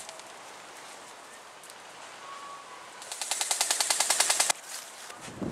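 Airsoft rifle firing a full-auto burst about three seconds in: a rapid, even rattle of shots, roughly a dozen a second, lasting about a second and a half and cutting off abruptly.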